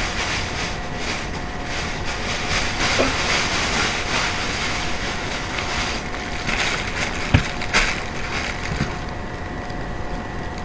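Plastic bags crinkling and rustling in bursts as they are bunched up and gathered off a table, over a steady hum, with a single sharp knock about seven seconds in.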